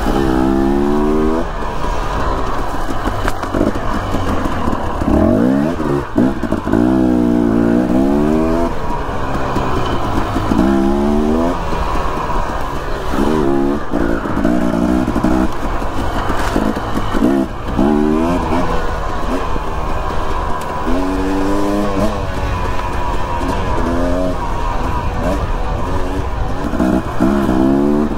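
Dirt bike engine under riding load, revving up and dropping back over and over as the throttle is worked along a trail.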